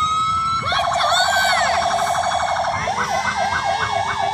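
Electronic emergency-vehicle siren, loud, switching modes: a held wail tone, then a rapid pulsing warble from about a second in, then a fast up-and-down yelp from about three seconds in.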